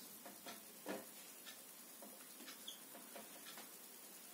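Faint, irregular taps and scratches of a marker pen drawing small loops on a whiteboard, about two a second, the clearest about a second in.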